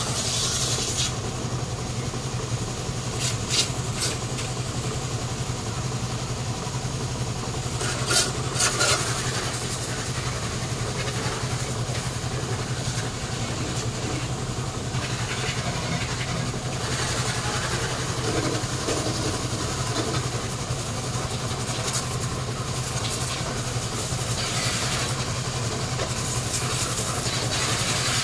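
A motor running steadily at a constant speed, with a few short clicks or knocks, a pair about three seconds in and another cluster about eight seconds in.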